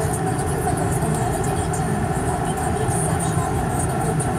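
Car driving slowly on a gravel road, heard from inside the cabin: a steady low rumble of engine and tyres with a fine crackle of gravel under the wheels.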